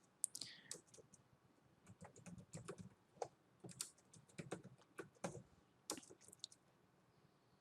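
Faint typing on a computer keyboard: quick, irregular keystrokes that stop about six and a half seconds in.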